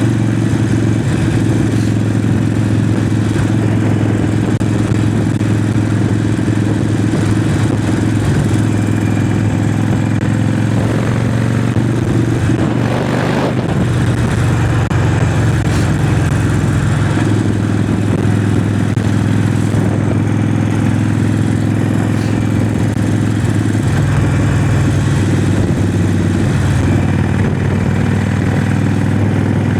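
Harley-Davidson Forty-Eight's air-cooled V-twin running steadily on the move, heard from a mic inside the rider's helmet, with a haze of wind and road noise. The engine note changes around the middle, then settles again.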